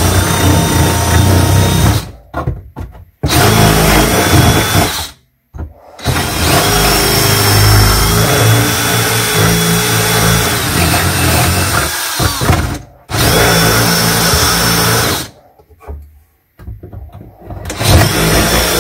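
Cordless drill boring into a cabinet shelf, running in long bursts with four short stops between them.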